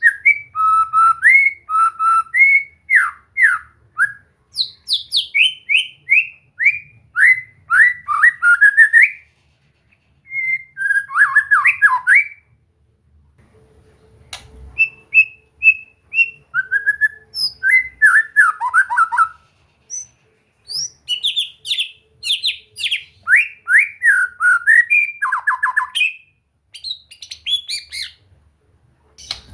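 White-rumped shama (murai batu) singing: loud phrases of rapid, downward-sliding whistled notes, broken by short pauses.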